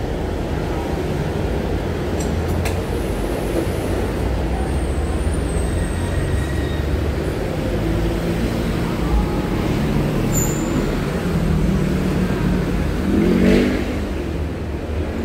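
Steady low rumble of a motor vehicle, with a brief pitched sound about thirteen seconds in.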